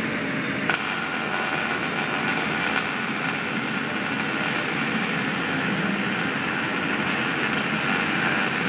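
MIG welding arc on steel, striking about a second in and then running as a steady, continuous crackling hiss over a background rumble.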